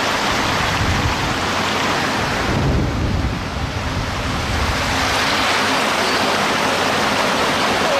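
Steady, loud rush of running water. About three seconds in it briefly turns deeper and duller.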